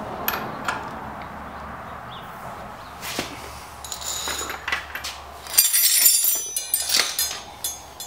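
Metal tools clinking: a socket and breaker bar being fitted onto a motorcycle's front axle nut. A few separate clicks early on, then a louder run of clinks and rattles about six to seven seconds in.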